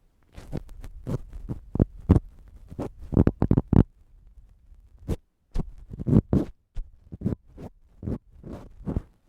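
Ear pick scraping and rubbing against the microphone, ear-cleaning ASMR: irregular short scratchy strokes with a deep rumble, some of them loud, and a brief pause about halfway through.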